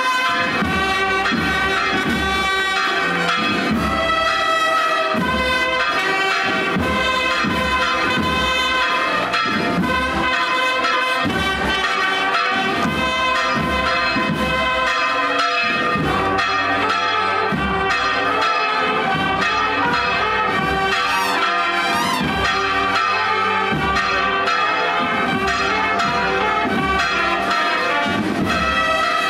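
Brass band playing a slow processional march, sustained brass chords over a steady bass drum beat.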